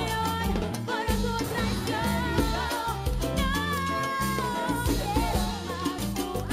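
Live Latin tropical dance orchestra playing, with a woman singing lead over brass and congas and a steady bass pulse; one long held note comes about halfway through.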